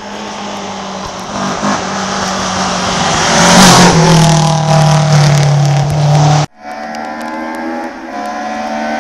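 Rally car driving past at speed, its engine loudest as it goes by about three and a half seconds in and then pulling away. The sound cuts off abruptly about six and a half seconds in, and the engine of a second rally car is heard approaching, its pitch rising.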